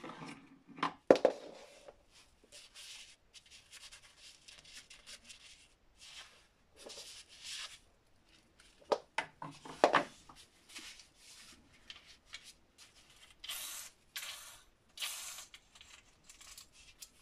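Gloved hands handling a Metabo WEV 11-125 Quick angle grinder that is not running: rubbing of the gloves on the plastic housing, with sharp clicks and knocks, loudest about a second in and again around nine to ten seconds.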